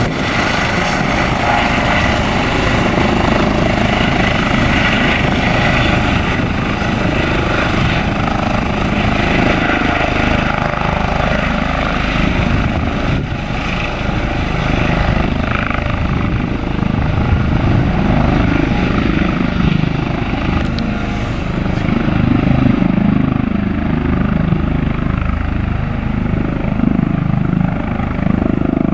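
Airbus H135 twin-turbine helicopter departing after take-off: steady rotor and engine noise, with the high turbine whine fading away in the first several seconds and a low rotor rumble continuing.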